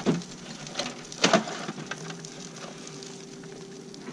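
A few light clinks and knocks as the drum smoker's metal hanging rods and hooks are handled at the open drum, the loudest about a second in. A faint steady hum follows in the second half.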